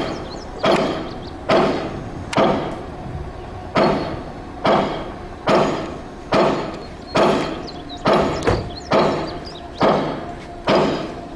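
A steady series of loud bangs on metal, a little more than one a second, each ringing briefly before the next.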